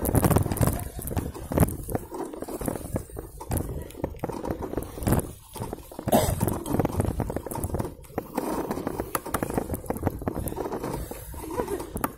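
Bicycle rattling and clattering over a bumpy dirt trail, with irregular knocks and jolts.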